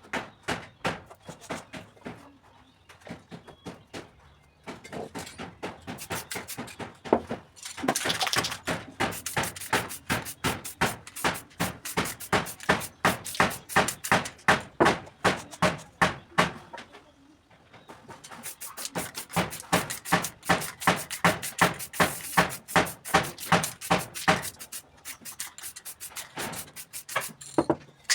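Fast, even rattling clicks, about five a second, in two long runs with a short pause between them, typical of an aerosol spray-paint can being shaken so its mixing ball rattles.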